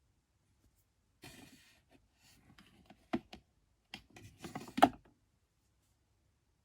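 Small plastic toy pieces being handled: a brief rustle, then a run of light clicks and taps, the sharpest click just before the end.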